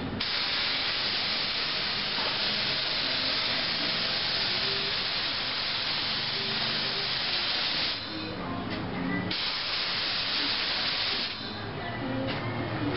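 Cheap compressed-air paint spray gun hissing steadily in long passes as it sprays a coat of paint. The hiss cuts out briefly twice, about two-thirds of the way through and again near the end, then comes back in short spurts as the trigger is pulled and released.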